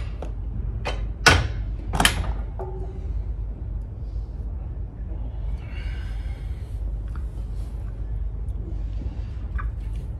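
Leg press machine clanking: three sharp metal knocks within the first two seconds, the middle one a heavy thud, as the sled is set back down. A steady low hum runs underneath.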